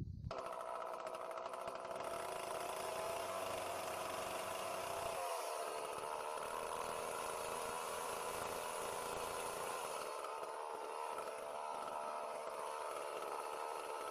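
Chainsaw running steadily at high revs and cutting a board. About five seconds in its pitch dips briefly and then settles slightly lower as it works through the wood.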